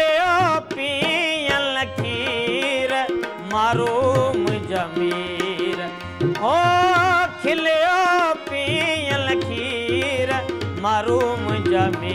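Sindhi folk song: a man sings long, wavering, ornamented notes without clear words over a harmonium, with a hand drum keeping time.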